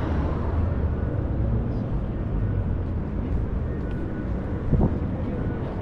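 Steady low rumble of city street traffic on a wide road, with a brief louder sound about five seconds in.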